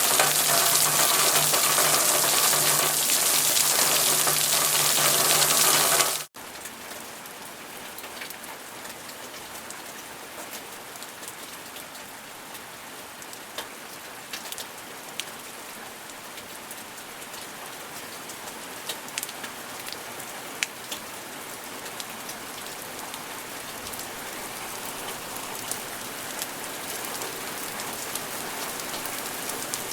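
Rain falling steadily. About six seconds in, the loud, dense downpour cuts off abruptly into lighter rain with distinct drops pattering, which slowly builds.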